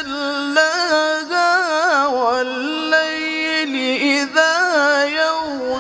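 A male qari chanting the Quran solo in the melodic tilawat style. His voice holds long drawn-out notes and ornaments them with quick wavering runs, with a couple of brief breaks between phrases.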